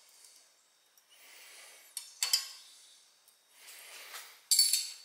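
Hand socket ratchet clicking as a bolt is run in, in short spells, with a loud burst of rapid clicks about two seconds in and a louder one near the end.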